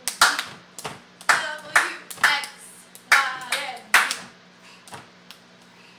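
A baby clapping her hands, uneven claps about one or two a second that stop about five seconds in, with short voice sounds between the claps.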